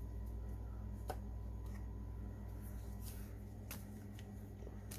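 Trading cards being handled, with faint, scattered light clicks and slides of card stock over a steady low hum.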